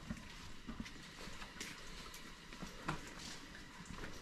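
Faint room background with a few soft knocks scattered through it.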